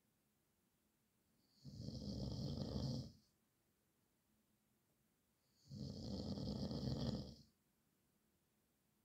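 A man snoring: two snores about four seconds apart, each lasting about a second and a half, with silence between them.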